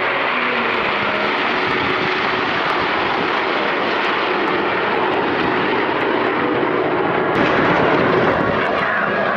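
Jet noise from a formation of Canadair CT-114 Tutor jet trainers, each with a single turbojet, in flight: a steady, loud rushing sound that swells slightly near the end.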